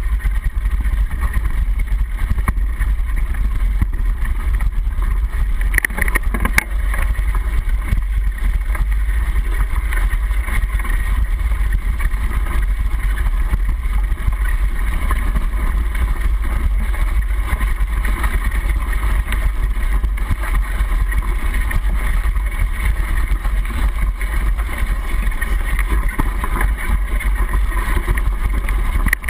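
Mountain bike riding a dirt forest trail, heard through a handlebar-mounted camera in a sealed waterproof housing: a continuous heavy low rumble of vibration and tyre noise on the dirt, with a few sharp knocks from bumps about six to seven seconds in.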